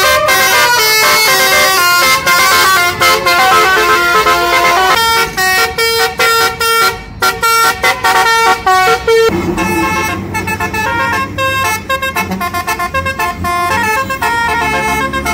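Basuri telolet horns on a tour bus, the roof-mounted trumpets playing a quick tune in stepped notes. About nine seconds in the tune changes and a low rumble comes in beneath it.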